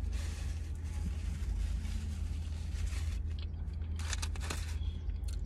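Steady low hum of a parked car's idling engine heard from inside the cabin, with an even hiss over the first three seconds. About four seconds in, a few short crackles of aluminium foil.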